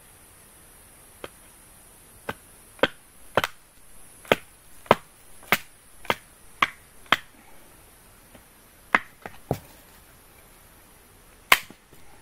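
Firewood being chopped: about a dozen sharp strikes, roughly two a second for several seconds, then a few more spaced out, with a steady high insect hum underneath.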